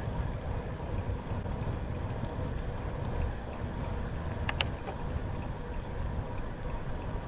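Riding a bicycle along a trail: a steady low rumble of tyre and wind noise, with two sharp clicks close together about four and a half seconds in.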